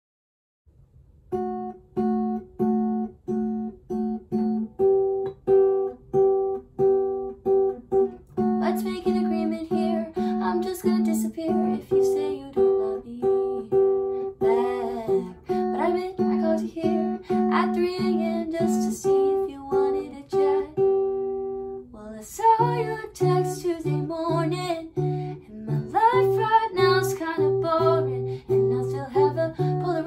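Acoustic guitar fingerpicked with a capo on the seventh fret, in steady repeated two-string plucks, beginning about a second in. A young woman's singing joins about nine seconds in. About 22 seconds in, the picking shifts to include the low E string, adding deeper bass notes under the melody.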